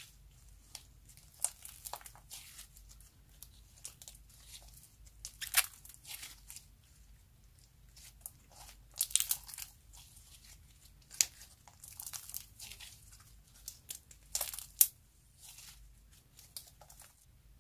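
Pink sequin-filled ("spangle") slime being stretched, folded and squeezed by hand, giving irregular sticky crackles and pops, some sharper and louder than others.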